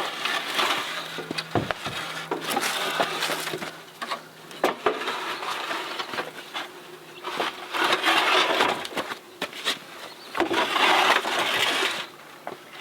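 Scraping, rubbing and knocking of a large plastic water tank being shifted and lifted into place on a crate, in uneven bursts with sharp bumps, with a faint low hum in the first half.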